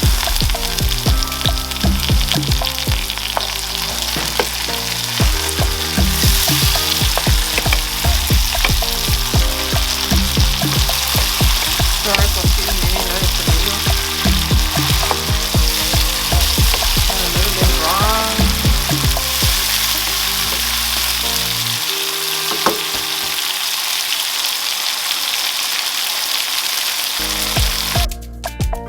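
Onions, garlic and tomato paste sizzling steadily in hot olive oil in a pot, with a spoon stirring and clicking against the pot.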